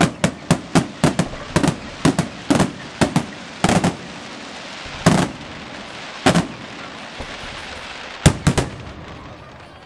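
Aerial firework shells bursting in sharp bangs. The bangs come in a rapid run, about three a second, for the first four seconds, then singly a couple of times over a steady hiss, with a quick cluster of bangs near the end.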